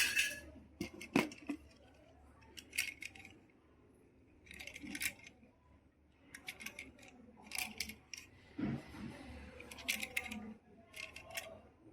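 Small toy vehicles being handled, clicking and clattering in short clusters of a few taps, with quiet gaps between them.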